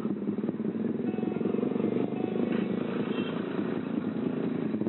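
Yamaha R15 V3's single-cylinder 155 cc engine running steadily at low revs as the motorcycle rolls slowly along.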